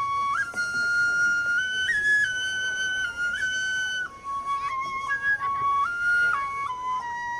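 A flute playing a slow solo melody of held notes that step up and down, with no drumming.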